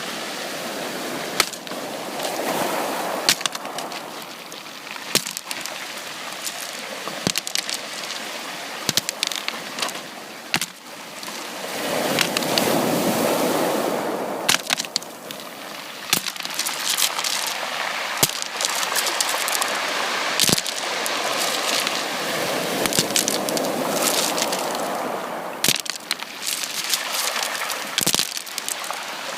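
Sea waves washing in, swelling and easing three times, loudest about twelve seconds in, with many sharp clicks and cracks throughout.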